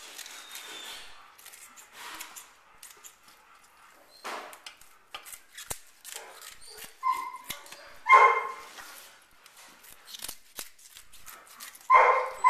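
Airedale terrier barking in short, sharp calls, once about seven seconds in, louder a second later, and again near the end, over small clicks and knocks.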